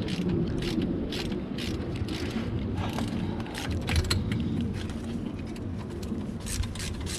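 Hand ratchet clicking as it is worked back and forth on an 8 mm Allen bit, undoing the upper guide bolt of a front brake caliper: a run of sharp clicks, about two a second.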